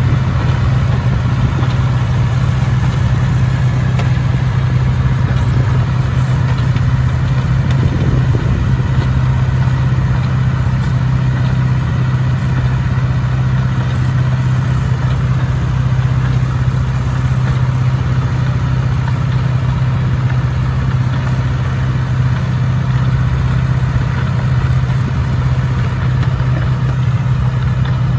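John Deere tractor's diesel engine running steadily at working speed, driving a muck spreader that throws muck out behind.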